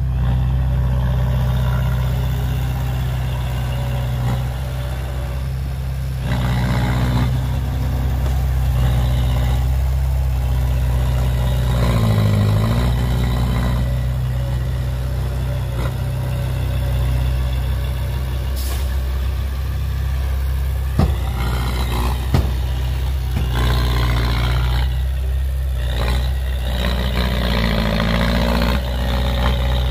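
Heavy diesel engines of dump trucks and a bulldozer running steadily, swelling and easing off several times as they work under load. A pitch dip and recovery comes partway through, and two sharp knocks come about two-thirds of the way in.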